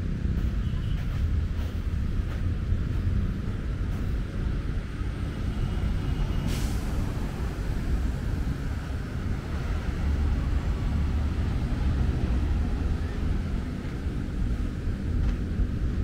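Road traffic as a steady low rumble, with one brief hiss about six and a half seconds in.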